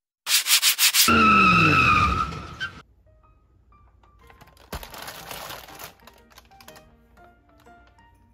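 Intro sound effect of a car: a quick run of sharp bursts, then an engine note falling in pitch with a tyre squeal, over about the first three seconds. Soft, sparse background music follows, with a brief whoosh about five seconds in.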